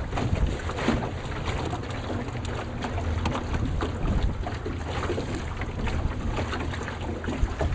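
Wind buffeting the microphone: a steady low rumble with irregular crackling gusts.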